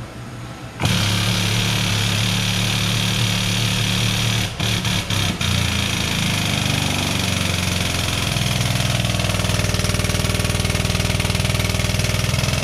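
Pump of a hydraulic shop press running steadily as the ram presses the hub onto a supercharger nose-drive shaft. It starts about a second in and cuts out for three short moments around five seconds in.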